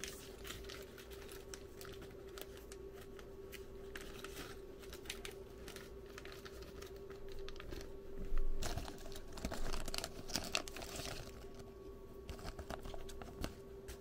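Faint clicks, scrapes and rustles of a high-voltage oscilloscope probe being handled while its compensation is adjusted, busiest a little past the middle, over a steady faint hum.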